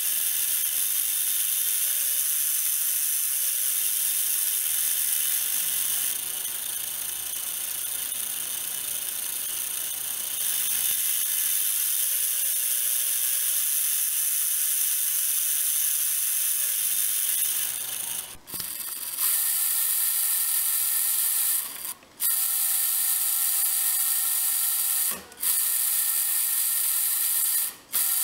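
A tiny electric motor drives a 3D-printed plastic reduction gearbox with a steady high whir and gear rattle. In the second half it stops briefly four times and starts again each time.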